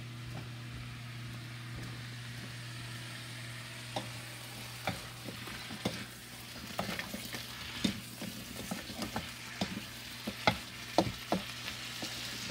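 Frozen broccoli and carrots sizzling in an electric wok while a utensil stirs them, scraping and knocking against the pan; the knocks come often from about seven seconds in. A steady low hum runs underneath.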